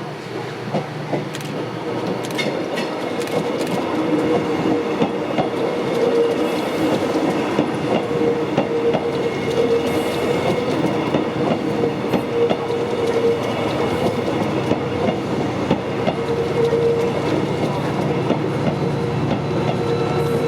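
TransPennine Express Nova 3 diesel locomotive-hauled train passing over the level crossing, its wheels clicking over the rail joints as it gets louder over the first few seconds and then runs steadily past.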